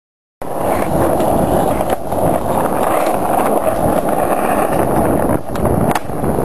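Skateboard rolling over pavement: a steady, loud rumble of the wheels, starting abruptly about half a second in and cut off at the end.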